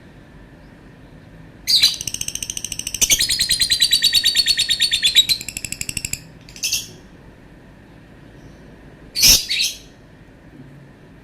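Lovebird singing a long, rapid chattering run of high chirps for about four and a half seconds, then a single short call and, about nine seconds in, a quick double call.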